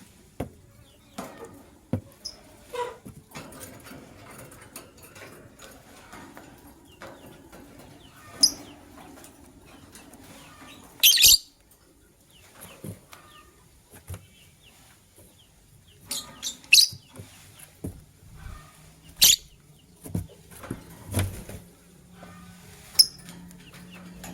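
Lovebirds giving short, sharp high-pitched chirps every few seconds, with soft wing flutters and small clicks of movement between them.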